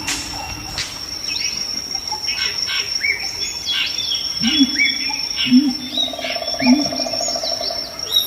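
Natural bush ambience: a steady high insect buzz with many short bird chirps, and three short low calls about halfway through.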